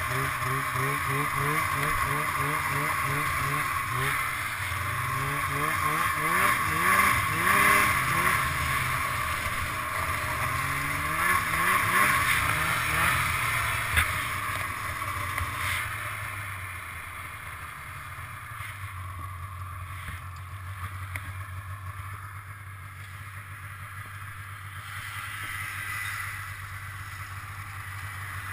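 Polaris Indy 500 snowmobile's two-stroke engine heard from on board, revving up and down repeatedly as the sled accelerates and slows. About halfway through it settles to a steadier, quieter low run.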